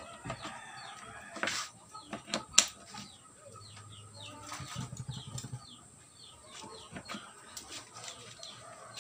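A 15-inch speaker driver popping with sharp clicks as a battery is touched to its leads, a quick check that the driver works; the loudest pop comes about two and a half seconds in. Birds chirp and chickens cluck in the background.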